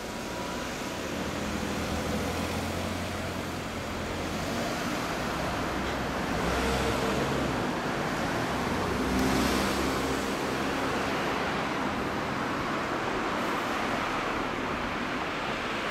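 Road traffic noise, with a steady rumble and vehicles passing about six and nine seconds in.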